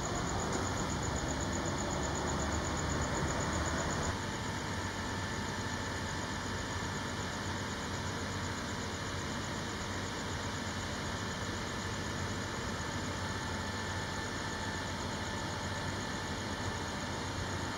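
Diesel engine of a Volvo FL road-rail truck idling steadily, a little quieter from about four seconds in.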